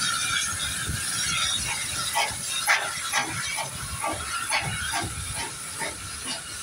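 Steam train pulling away: the SE&CR O1 locomotive hauling Pullman coaches, with steam hissing and a regular run of short sharp beats about three a second, starting a second or so in.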